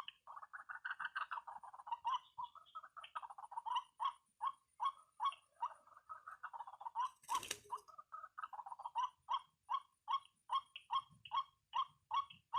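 White-breasted waterhen calls, a steady run of repeated harsh 'kwak' notes at about two or three a second, with faster chattering stretches near the start and again later. A short burst of rustling noise comes about halfway through.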